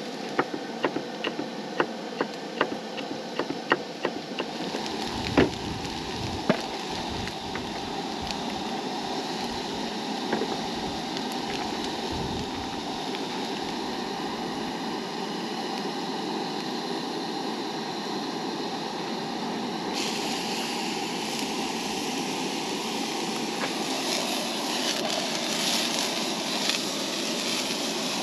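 Knife chopping on a wooden cutting board, about two to three chops a second. After about four seconds, a frying pan of diced potatoes sizzles steadily on a propane camp stove, turning hissier about twenty seconds in.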